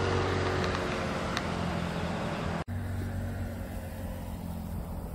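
A motor running steadily, a continuous low hum over a wash of noise, like a vehicle engine; it drops out for an instant about two and a half seconds in and then carries on.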